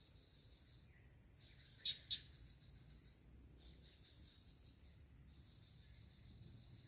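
Steady, high-pitched chorus of crickets and other insects, with a fainter on-and-off trill beneath it. About two seconds in come two short, sharp chirps in quick succession, the loudest sounds here.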